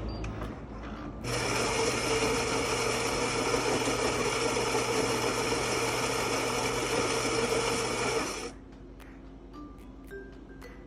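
Philips coffee machine's motor running steadily for about seven seconds, starting about a second in and cutting off suddenly.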